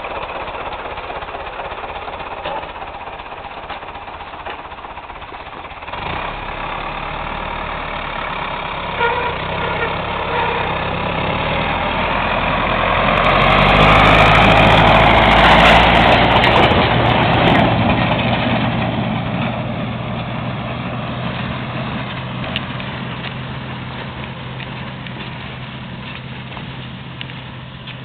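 New Holland HW320 self-propelled swather running. About six seconds in, a deeper engine note comes in and the noise swells to its loudest near the middle. It then settles back to a steady hum.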